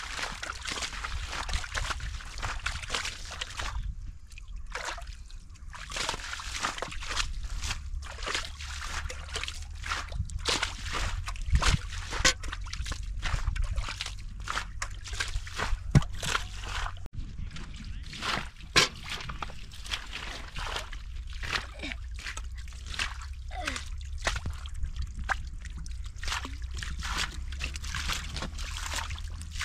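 Shallow water splashing and sloshing in many small, irregular splashes, with a few louder ones, as it is worked by hand in a wetland fishing spot.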